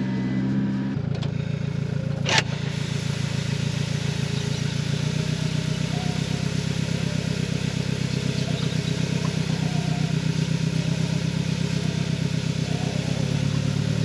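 Barley running out of a feed trailer's chute onto the ground with a steady hiss, over the even, pulsing run of the towing vehicle's engine. A single sharp knock about two seconds in.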